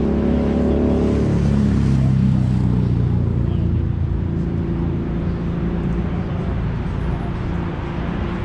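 Road traffic: vehicle engines running with a steady low drone and hum.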